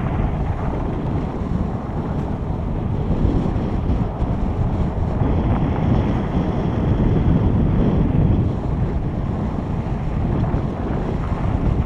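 Wind buffeting a helmet-mounted camera's microphone as a mountain bike rides a dirt trail. It is a steady, loud rush heaviest in the low end.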